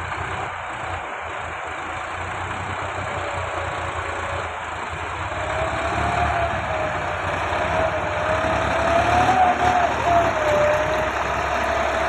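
Massey Ferguson 385 tractor's Perkins diesel engine working under load as it hauls a trolley heaped with sand. It grows louder about five seconds in, with a wavering whine over the engine note.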